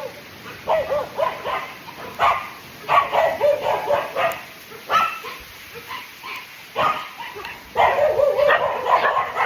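Cane Corso vocalising in a string of short pitched whines and yips, coming in bursts with pauses between, and a longer run of calls near the end.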